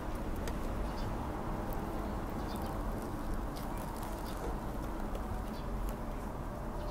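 Outdoor garden ambience: a steady low rush with faint scattered bird calls and light high ticks over it.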